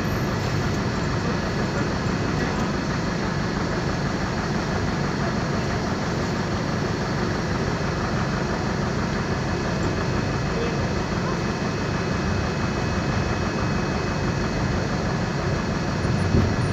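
Air-cooled Deutz diesel engine of an Otokar M-2000 bus running as the bus drives, heard from inside the cabin as a steady, loud drone.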